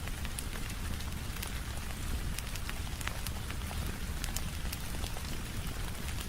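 Steady rain with a low rumble underneath, mixed with scattered sharp crackles and pops of a wood fire.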